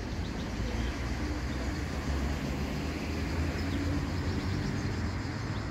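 Outdoor town ambience: a steady low rumble with a few faint bird chirps.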